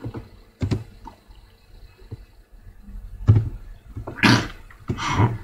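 A few computer keyboard keystrokes as a line of assembly code is typed, then two short breathy rushes of noise near the end.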